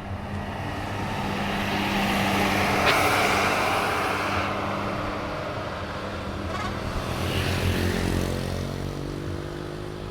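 Road vehicles driving past, most likely buses: engine and tyre noise swells to a peak about three seconds in and fades, then a second vehicle swells and passes around eight seconds in.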